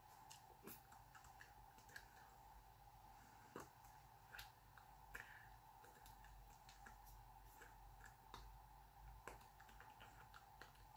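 Near silence: room tone with a steady faint hum and scattered faint, short clicks.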